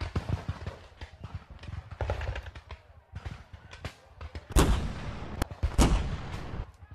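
Battle sound effects of scattered musket gunfire, a continual crackle of sharp shots. Two heavier blasts come about four and a half and six seconds in, fitting a field cannon firing.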